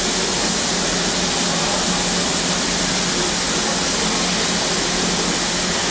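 BR Britannia class steam locomotive 70013 Oliver Cromwell standing with steam escaping: a loud, steady hiss that does not let up.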